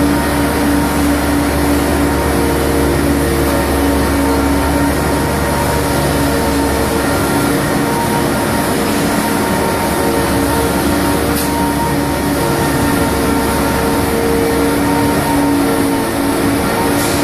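Nicolas multi-axle hydraulic transporter's engine running steadily under load as it carries a ship section: a constant low drone with a steady hum over it.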